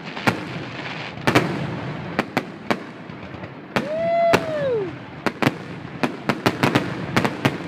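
Fireworks display: a rapid, irregular string of sharp bangs and cracks over a low rumble, gunshot-like with thunder mixed in. About halfway through, a single pitched whistle bends up and then falls away over about a second.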